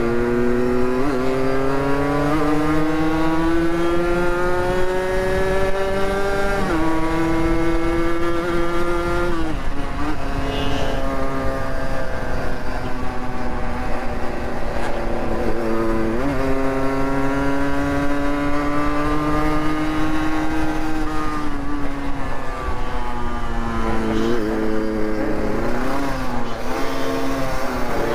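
Motorcycle engine running under way, its pitch climbing slowly for several seconds and then dropping sharply, a few times over.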